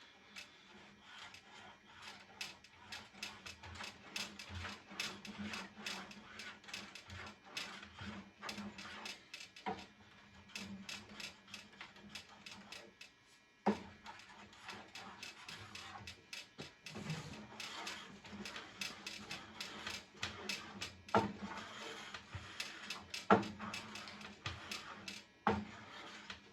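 Irregular rubbing and scraping strokes with scattered clicks, from wax being worked crossways over a table saw's metal top by hand.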